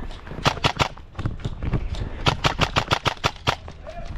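Airsoft rifle firing quick strings of sharp shots, about six a second: three about half a second in, then a run of about eight from around two seconds in.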